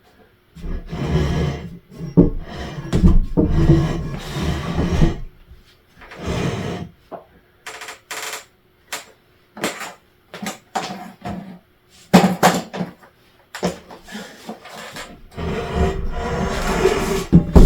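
Drop-ceiling tiles and their metal grid being pulled down: irregular clattering, rustling and scraping with sharp knocks and bangs.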